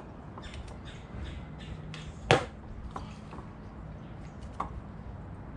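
Small clicks and light knocks of carburetor parts being handled and unclipped on a two-stroke Yamaha outboard, with one sharp click about two seconds in and a smaller one near the end, over a faint steady low hum.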